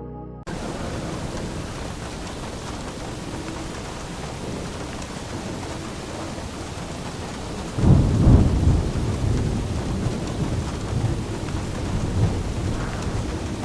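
Steady heavy rain, with a loud roll of thunder about eight seconds in that rumbles on for several seconds.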